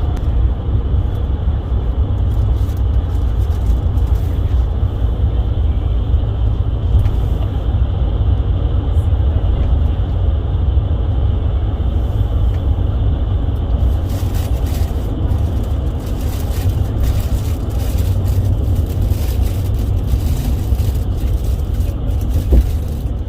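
Steady low rumble of engine and road noise heard from inside a moving road vehicle, with light rattles and ticks joining in during the second half.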